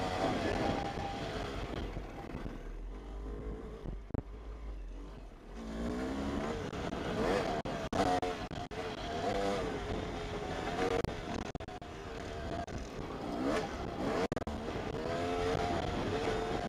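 Yamaha YZ250 two-stroke dirt bike engine revving up and down as the rider works the throttle on a trail. It drops off throttle about two seconds in, then picks up again with rising revs over and over until the end.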